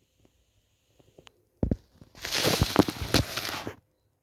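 A thump, then table legs scraping and juddering across the floor for about a second and a half as the table is dragged.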